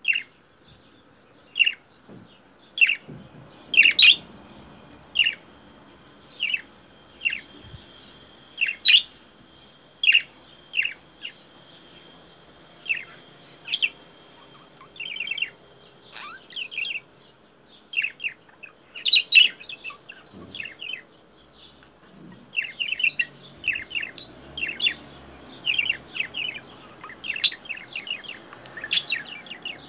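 Budgerigar giving short sharp calls, about one a second, coming thicker and faster in the last several seconds. The title likens them to a crow's caw. A faint steady high tone runs under the calls for about ten seconds in the first half.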